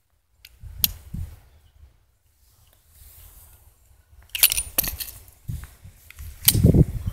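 Metallic clicks and rattles of an Iver Johnson top-break .38 S&W revolver being broken open and its cartridges handled after firing. A couple of sharp clicks come about a second in, then a busier run of clicks and clatter from about four and a half seconds, with dull handling bumps near the end.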